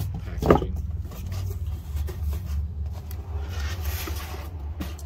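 Crumpled paper packing being pulled out of a cardboard box and handled, rustling and scraping, over a steady low hum.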